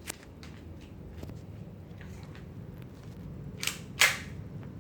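Airsoft replica Beretta M9A1 pistol being fired: a few faint handling clicks, then a lighter crack and, about four seconds in, a loud sharp shot.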